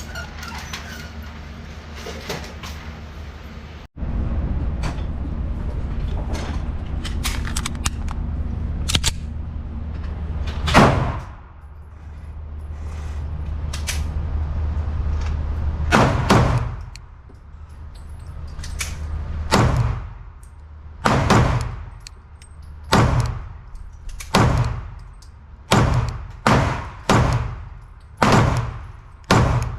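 Sig P229 pistol shots fired in a series, slow at first and then quicker, about one a second near the end, each shot ringing out briefly. A steady low hum runs under the first half.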